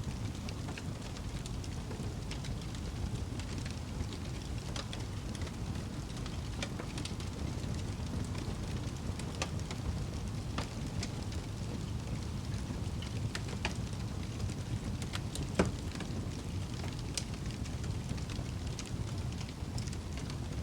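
Wood fire crackling in a fireplace: a steady low rumble with irregular sharp snaps scattered through it, and one louder pop about fifteen seconds in.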